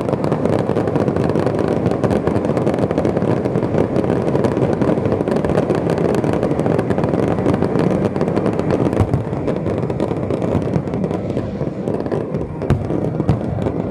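Dense fireworks barrage: many shells bursting at once, merging into a continuous rumble thick with crackles. The crackle thins somewhat about nine seconds in.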